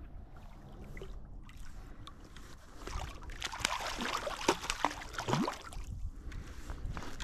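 Hooked sea trout thrashing and splashing at the surface in shallow water by a river bank. The splashes come in a quick flurry from about three seconds in and die down near the end.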